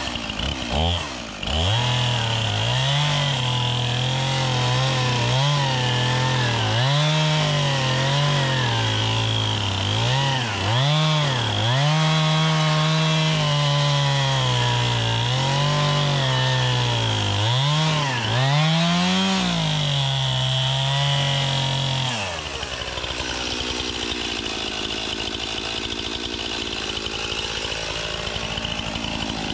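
Stihl chainsaw running at high revs and cutting into a tree trunk, its pitch dipping and recovering over and over as the chain loads in the wood. About 22 s in it drops to a lower, quieter idle.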